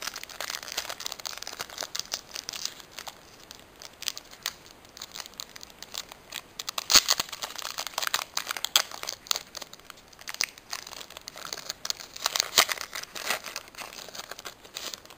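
Foil wrapper of a Pokémon EX Sandstorm booster pack crinkling and tearing as it is handled and ripped open: a long string of sharp crackles, loudest about seven seconds in and again around twelve to thirteen seconds in.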